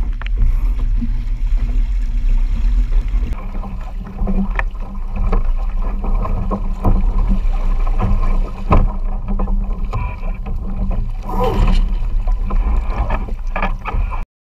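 Wind buffeting an open microphone and water rushing against the hull of a Musto Skiff sailing dinghy under way, with scattered knocks and clicks from the boat. The sound cuts off suddenly near the end.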